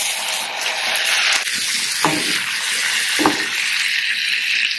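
Water poured into a hot cast iron skillet of fried onion, spices and potato, sizzling steadily. The sizzle starts suddenly and cuts off abruptly near the end.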